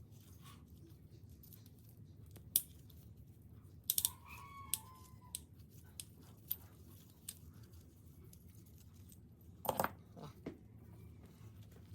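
Scattered clicks and knocks of small metal parts and hand tools being handled while a rotary hammer drill is taken apart, one part ringing briefly about four seconds in and a short cluster of knocks near the end, over a low steady hum.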